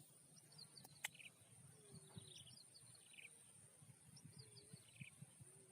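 Faint outdoor ambience of a bird singing a short phrase of quick falling high notes ending in a buzzy note, repeated about every second and a half over a steady high hiss. There is a single sharp click about a second in.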